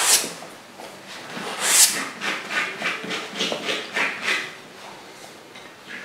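Paintbrush strokes scraping across a stretched canvas: a sharp scrape about two seconds in, then a quick run of short strokes, about four a second, that stops past the middle.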